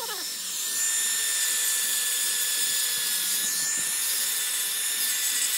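Handheld angle grinder running steadily with a high whine as its cutting disc trims metal wire mesh along the edge of a wooden door frame.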